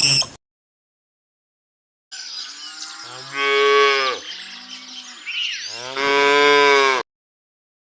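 Cow mooing twice: two long, low calls about two and a half seconds apart.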